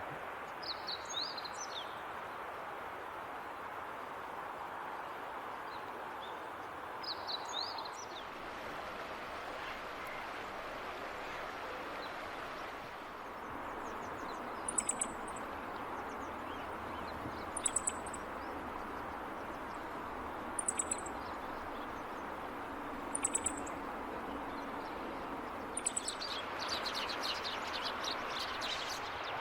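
Wild birds calling over a steady background rush: two short twittering phrases early, then a short, very high call repeated about every three seconds, ending in a denser flurry of high calls.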